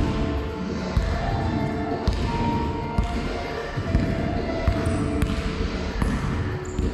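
Basketball dribbled on a wooden sports-hall floor, bouncing about once a second in a large hall.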